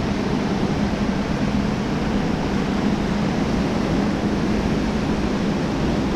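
Steady wind and ocean surf noise, with wind rumbling on the microphone.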